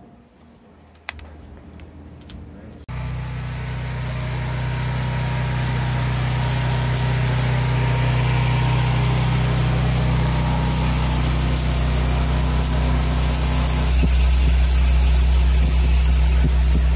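Laser cleaning machine switching on about three seconds in and running steadily, a dense hiss over a steady low hum, as it strips paint and rust from a cast iron gear case; it steps up a little louder near the end.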